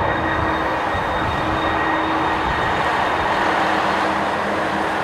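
Steady rushing noise of jet airliner engines, with faint steady whine tones over it.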